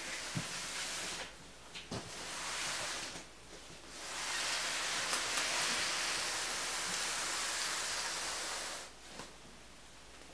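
Scraping, hissing noise in three stretches, the longest lasting about five seconds, with a few light knocks: a cardboard box being slid and moved over a wooden floor.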